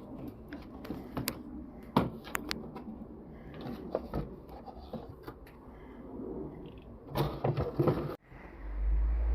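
Irregular clicks and light knocks of parts being handled for about eight seconds, with a busier cluster near the end. After an abrupt cut, a loud low steady rumble starts.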